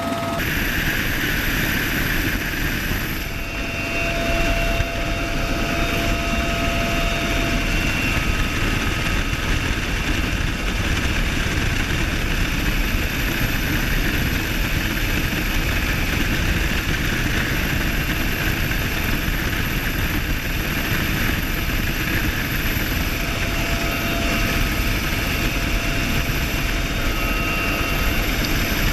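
Bell UH-1Y Venom helicopter running steadily, with constant rotor and turbine noise and a few steady whining tones over it.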